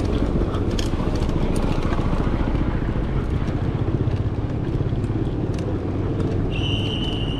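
Steady road traffic noise with motorcycle and car engines, and scattered light clicks in the first couple of seconds. Near the end a steady high-pitched tone sounds for about a second.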